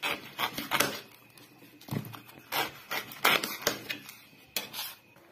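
Kitchen knife chopping the stem ends off green corn ears on a hard concrete counter: irregular sharp knocks as the blade cuts through the cob and strikes the surface.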